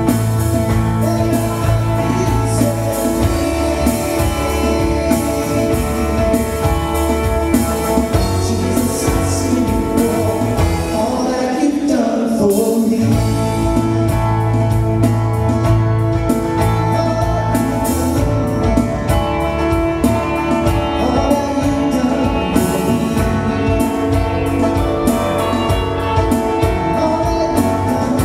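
Live praise band playing a song on acoustic guitars, electric guitar, bass guitar and drum kit, with singing. Near the middle the bass and drums drop out for about a second, then come back in.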